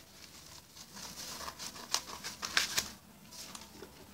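Scissors snipping through newspaper, with paper rustling between a few sharp cuts, the loudest about two to three seconds in.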